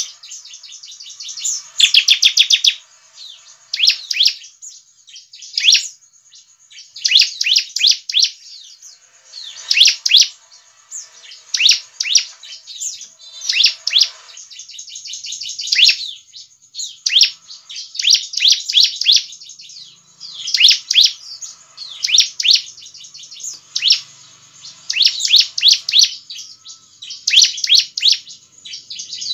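Bar-winged prinia (ciblek) singing: fast, high-pitched trilled phrases of rapid notes, repeated every second or two with short pauses between them. This is the bird's loud full song, the kind played to draw other ciblek into answering.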